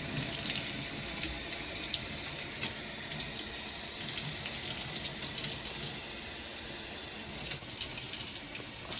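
Water running steadily from a kitchen tap, an even rushing hiss with a few faint clicks and knocks.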